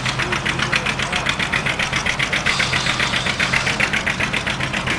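Antique tractor engine running at a slow, steady speed, its firing beat coming through as an even pulse of about six a second.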